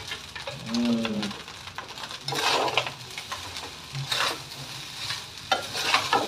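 Fried rice being stirred in a wok with a metal spatula: three scraping strokes over a faint sizzle. A brief vocal sound comes about a second in.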